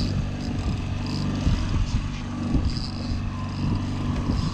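Fishing boat's engine running steadily at trolling speed.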